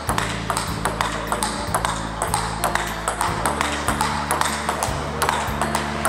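Table tennis rally: the ball clicking off paddles and the table in a quick back-and-forth rhythm, over background music.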